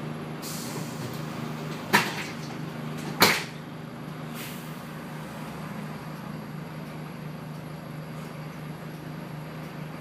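TransBus Dart SLF bus's diesel engine running steadily with the bus under way, heard from inside the cabin. Two sharp knocks a little over a second apart about two seconds in are the loudest sounds, with two short faint hisses, one near the start and one after the knocks.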